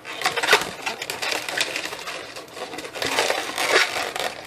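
Irregular squeaking and crinkly rubbing of a white 260 latex twisting balloon being handled and worked between the hands, busiest about three seconds in.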